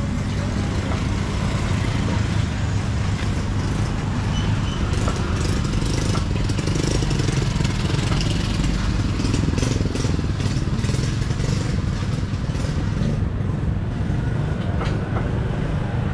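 Street-market ambience dominated by the steady low hum of nearby motorbike and traffic engines, with scattered clicks and clatter between about five and eleven seconds in.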